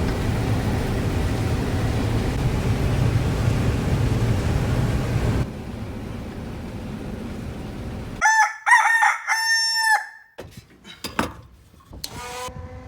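Steady machine rumble of the combine on the move, which cuts off suddenly about five seconds in. About eight seconds in, a rooster crows loudly, one crow of about two seconds.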